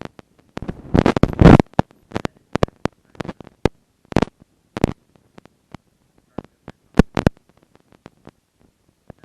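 Irregular sharp clicks and knocks of work on a laptop's underside as its tiny hex screws are taken out, with a dense run of them about a second in and fewer toward the end.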